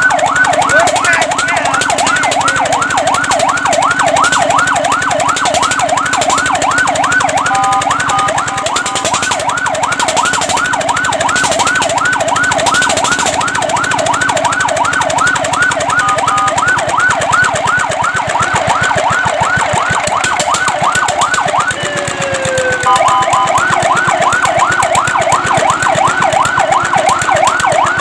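Fire truck's electronic siren in a fast yelp, its pitch sweeping up and down about four times a second. The yelp breaks twice for a short steady two-note tone. About three quarters of the way through it dips with a falling glide, then starts again.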